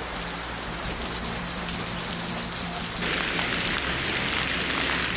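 Steady hiss of heavy rain. About three seconds in, it cuts to another recording of pouring rain that lacks the highest part of the hiss.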